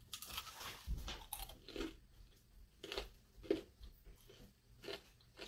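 Biting into and chewing a piece of flour-coated fried chicken: a run of soft, irregular crunches, several a second at first and sparser toward the end.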